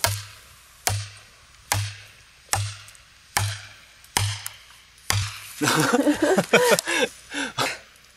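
A hammer striking the back of a hatchet driven into a log to split firewood: seven sharp knocks, a little under one a second. After that, a man's voice for about two seconds near the end.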